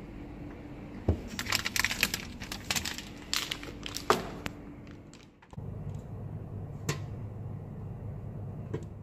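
Plastic packaging rustling and crinkling, with clicks and knocks as groceries are handled at an open refrigerator, over a low steady hum. About halfway through, the sound cuts to a different steady low hum with a couple of single clicks.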